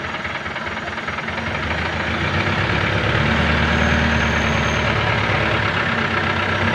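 An engine running steadily with a low hum, getting louder over the first few seconds. It is not the engine in view, whose cylinder head is off.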